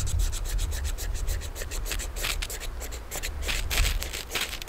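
Ferro rod (fire steel) scraped repeatedly with a striker over birch-bark tinder: a quick, uneven run of short rasping strokes over a low rumble.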